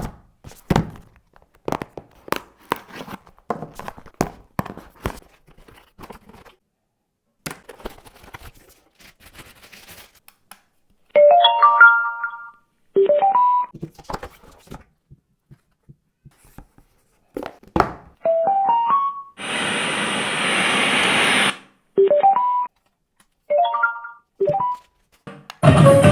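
Packaging and plastic being handled: a string of short clicks and knocks. Then a Bluetooth speaker's electronic prompt tones: short runs of quick rising chime notes, repeated several times, and a two-second hiss-like burst between them, as the speaker is switched on and paired.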